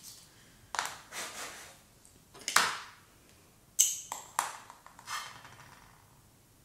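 Handling sounds of hobby tools and small plastic model-kit parts at a desk: about half a dozen short scrapes and knocks, the loudest about two and a half seconds in.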